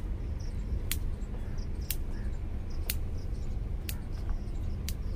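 Electric fence energizer ticking, one sharp click about every second, each a pulse of current sent down the field-edge wire that keeps stray cattle away: the fence is live and working. A low steady car rumble runs underneath.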